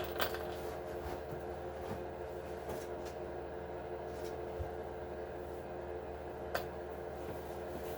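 A steady machine hum, like a fan or appliance in a small room, with a few light clicks, the sharpest just after the start and another at about six and a half seconds.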